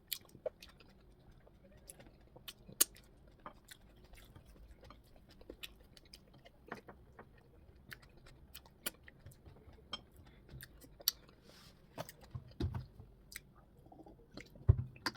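Close-miked chewing of soft plantain fufu and okra soup, with wet mouth smacks and a scattering of sharp clicks.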